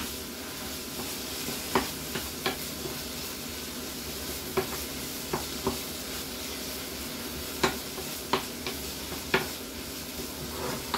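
Cod and prawns sizzling in a frying pan as a wooden spatula stirs them, with a steady hiss and scattered sharp knocks of the spatula against the pan.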